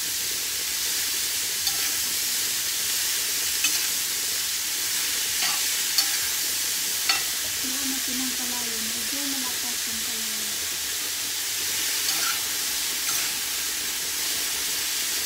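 Mung bean sprouts, carrots and mushrooms sizzling steadily in a stainless steel frying pan while being stirred and tossed with a wooden spatula, which knocks sharply against the pan a few times.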